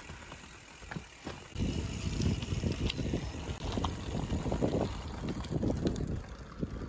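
Bicycle being ridden over a rough path: a low, uneven rumble of tyres and rattling bike that grows louder about a second and a half in.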